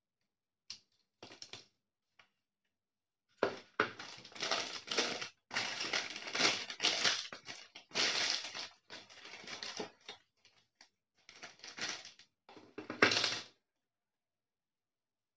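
Crinkly packing wrap being handled and unfolded by hand, an irregular rustling and crackling that goes on for about ten seconds and stops near the end. A few light clicks come before it.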